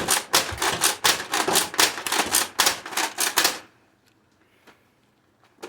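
Nerf lever-action shotgun blaster fired in rapid succession: a quick, even run of plastic clacks and dart shots, about four or five a second, that stops suddenly about three and a half seconds in. A couple of faint clicks follow.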